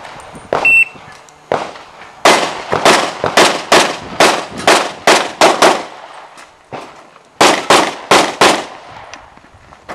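Pistol shots fired in quick succession during an IPSC handgun course of fire: a few separate shots, then a fast string of about a dozen shots, roughly three a second, a pause, and four more quick shots near the end.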